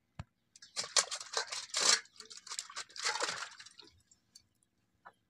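Small catla fish being cleaned on a boti's curved iron blade: a rapid, irregular run of rough scraping strokes, then water splashing in a steel bowl as a fish is rinsed. A single sharp click comes just before the scraping.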